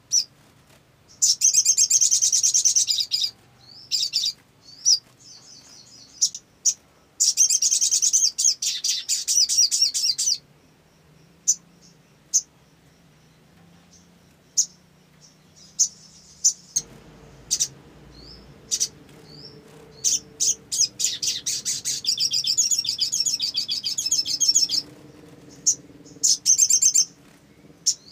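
Olive-backed sunbird singing: three bursts of fast, high-pitched rattling trills, each lasting two to five seconds, with single sharp chirps in between.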